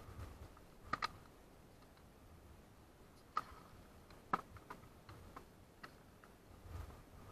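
Faint, scattered sharp clicks and knocks of hands handling a caught rockfish and gear in a plastic tub in a rubber boat: a quick double click about a second in, then single sharper knocks a few seconds later and a few light ticks.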